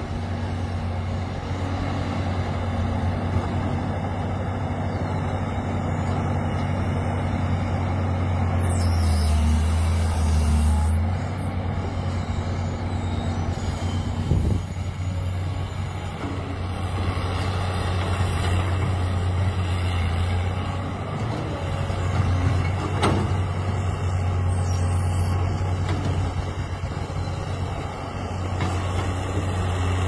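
Diesel engine of a Caterpillar E200B hydraulic excavator running steadily under load as it digs soil and swings buckets over a dump truck. About nine seconds in, the engine note drops lower for a couple of seconds with a hiss over it. A sharp knock comes about halfway through.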